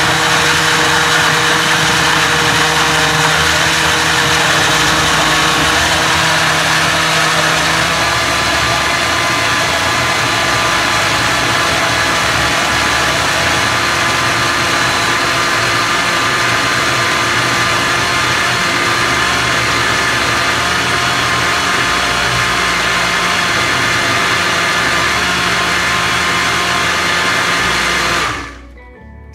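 Countertop blender motor running steadily at full speed, whirring a thin semolina and flour batter for baghrir. Its tone shifts slightly about eight seconds in, and it cuts off near the end.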